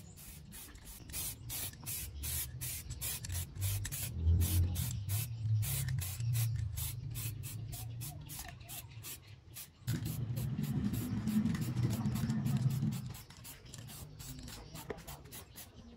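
Aerosol spray can hissing in many short bursts, a few a second, as the cassette deck's metal cover is spray-painted.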